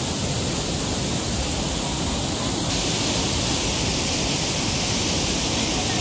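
Steady rushing of the Urlătoarea Mare mountain stream and waterfall, a dense, even water noise.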